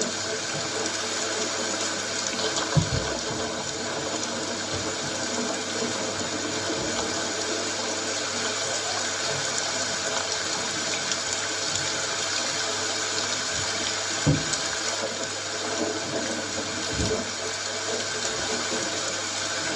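Steady rainfall hissing, with three brief low thuds, about three, fourteen and seventeen seconds in.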